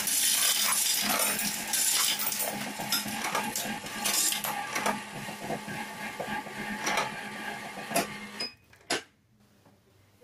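Electric coin sorter running: a steady motor hum under a rapid, dense clatter of coins being counted and dropped into the tubes. It stops about eight and a half seconds in, and a single click follows.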